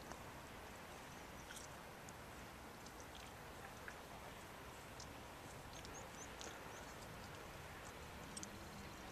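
Quiet outdoor ambience: a faint steady hiss with scattered faint, short high ticks.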